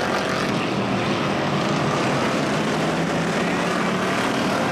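Engines of several figure-eight stock cars running at racing speed together, a dense, steady engine noise with no let-up.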